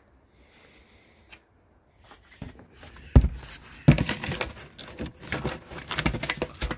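Cardboard toilet box being handled at close range: scraping, rubbing and rustling with knocks, including two sharp thumps about three and four seconds in, after a quiet start.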